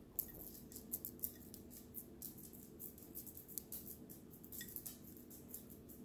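Faint, irregular light clicks and ticks, several a second, from parrots pecking and stepping at a thin drinking glass and on a granite counter, over a faint steady low hum.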